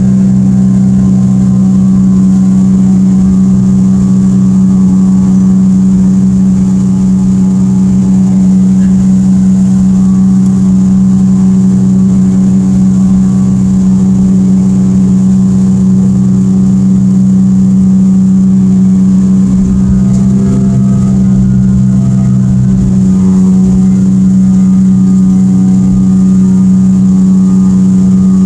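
Evinrude 115 E-TEC two-stroke outboard running at a steady high throttle and holding one pitch throughout, driving the boat at planing speed. Wind and water noise rumble underneath.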